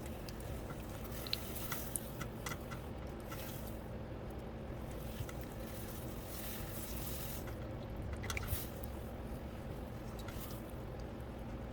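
Wet clay being worked on a running potter's wheel: soft squishing and scraping with scattered small clicks over a steady low hum.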